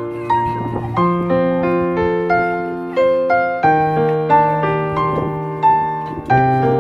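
Background piano music: a slow melody of sustained notes over a held bass note, each note struck and decaying.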